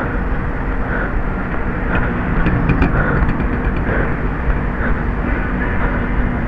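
Steady outdoor street noise: a low traffic rumble mixed with the rustle and rumble of a handheld camera being carried along on foot.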